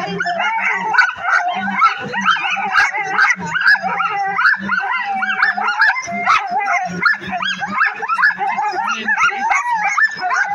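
A team of harnessed sled dogs barking, howling and yipping all at once in a continuous, overlapping chorus. It is the excited clamour of dogs straining to be let go and run.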